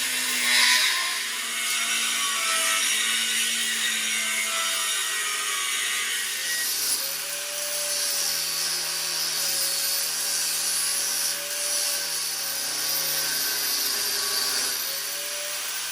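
Power tool cutting steel bracket plates, a continuous harsh hiss and grind with a wavering whine that runs steadily and cuts off at the end.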